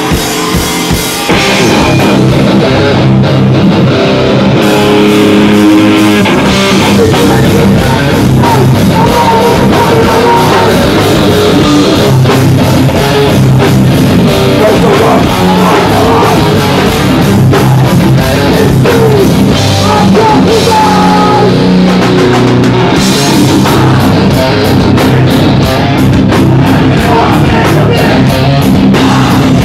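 Rock band playing live at full volume: distorted electric guitars and a drum kit, steady and unbroken.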